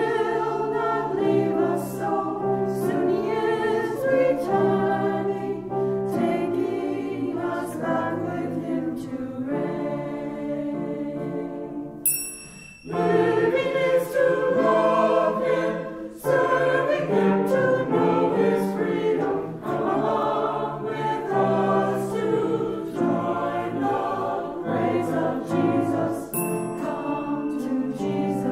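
A choir singing a hymn in sustained phrases, with a brief pause about twelve seconds in. A bright bell-like ring sounds at the start of that new phrase and again near the end.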